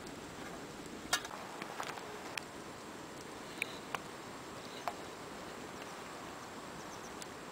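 Quiet, steady outdoor background hiss with a few faint, scattered clicks and taps.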